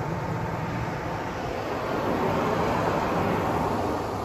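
Water from a tunnel car wash spraying onto the car and streaming over the glass, heard from inside the cabin over a steady low hum of wash machinery. The spray grows louder about two seconds in, then eases.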